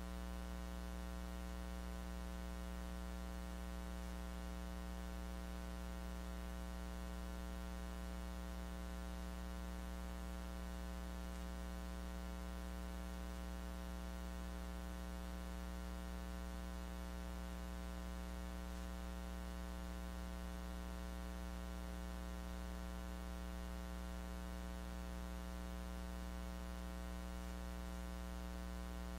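Steady electrical mains hum with many overtones over a faint hiss, unchanging throughout. The audio feed picked up only hum and no lecture sound.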